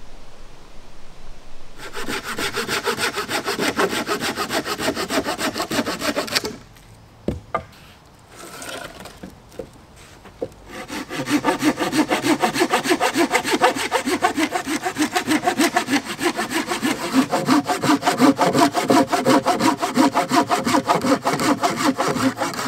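Hand saw cutting through dead wood for firewood: two long runs of fast, even back-and-forth strokes, broken in the middle by a pause of about four seconds with a single knock.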